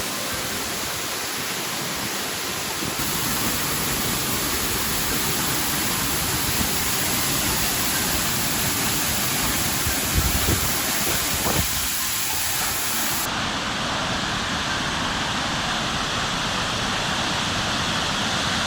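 Steady rushing roar of a monsoon waterfall, with a few low thumps about ten seconds in.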